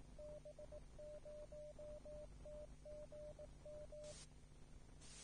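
A single beeping tone keyed in Morse code, sending the DB0TGM amateur TV repeater's callsign identification; it spells B-0-T-G-M and stops about four seconds in. A brief burst of hiss follows, with another near the end, over a faint low hum.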